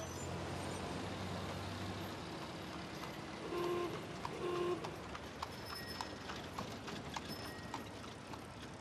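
Period street ambience of a 1920s city square from a film soundtrack: old motor cars and buses running, with horses' hooves clip-clopping. Two short horn toots sound about halfway through.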